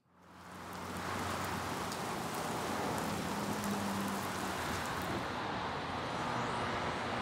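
A steady, even hiss of outdoor ambience fades in over the first second, with a faint low hum underneath.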